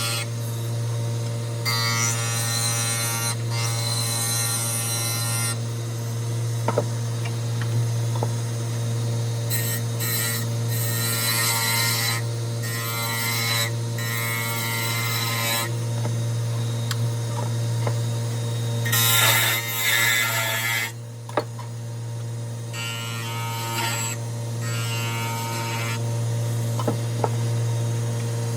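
Wood lathe running with a steady motor hum while curly cherry spins on it, interrupted by repeated passes of a tool against the wood, each a hiss lasting a second or two, with a few sharp clicks.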